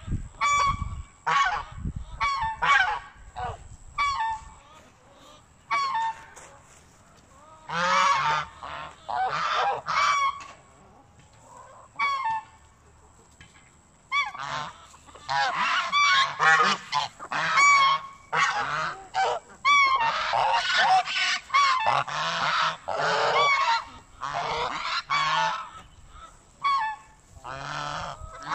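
Domestic geese honking: several birds calling over one another in bursts, with short lulls between, the calling densest through the second half.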